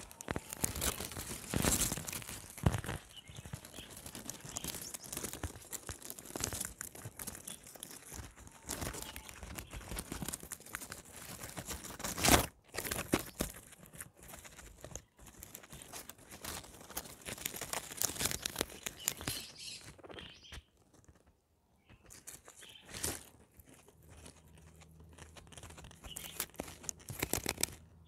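Guinea pigs eating: a dense run of small crisp crunches and chewing sounds, with one louder crunch near the middle and a brief lull about three-quarters of the way through.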